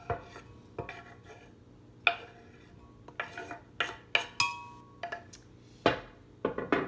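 Kitchen knife scraping and tapping diced cooked potato off a wooden cutting board into a glass blender jar: about a dozen irregular sharp knocks and clicks, a few with a brief ring.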